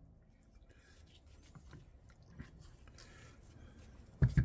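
Faint clicks and scrapes of a Honda GL1000 final drive's crown gear being worked out of its aluminium cover, then two sharp knocks close together near the end.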